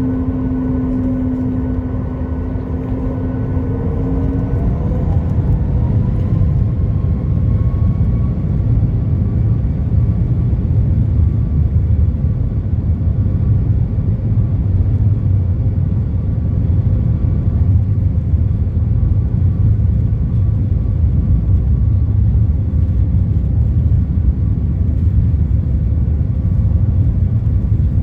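Boeing 737 MAX 8 cabin noise heard from a window seat: the CFM LEAP-1B engines' whine rises in pitch over a few seconds, then holds steady over a low rumble, typical of the engines spooling up to takeoff power. A lower hum stops a few seconds in.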